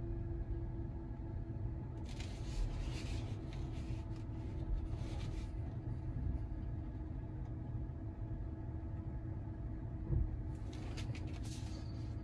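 Road and tyre rumble of a Tesla Model Y Dual Motor driving, heard inside the cabin, with a faint steady tone over it. A hiss swells twice, about two seconds in and again near the end.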